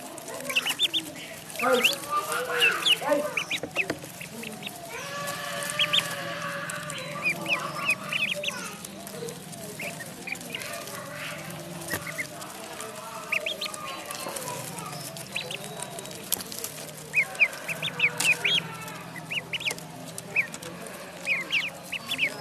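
Ducks and ducklings calling: lower quacking calls mixed with repeated bursts of short, high peeps.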